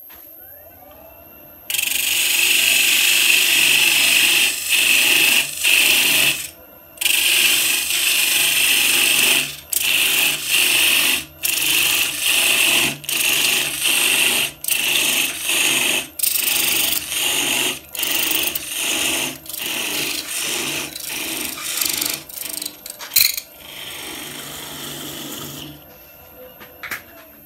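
A wood lathe spins up, then a parting tool cuts into the spinning scrap-wood block along the hot-melt glue line, parting off a thin spalted beech disc. The cut starts as long continuous passes with a loud hissing scrape, then breaks into many short strokes. A single sharp click comes near the end, then the lathe runs down.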